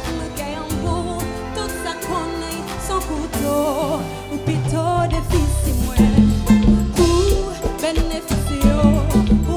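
Live band music with a steady drum beat and a bass line that comes in heavier about halfway through, with wavering melodic lines over it.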